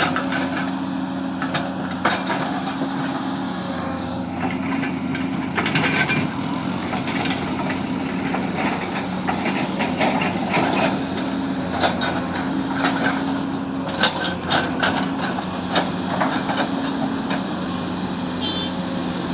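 Excavator engine running steadily, with scattered knocks and clanks throughout.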